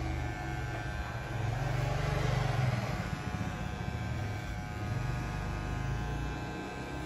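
Electric hair clipper buzzing steadily as it cuts hair over a comb, with a low rumble rising and falling under it.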